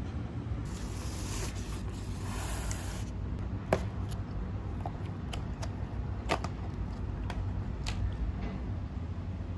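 Black plastic lid of a self-heating meal box being handled and lifted off: a series of sharp plastic clicks and taps. A hiss lasting about two seconds comes before them, over a steady low rumble.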